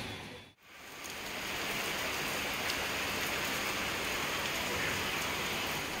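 Steady rain falling on wet concrete ground and stairs. The sound drops out briefly about half a second in, then the rain picks up again and stays even.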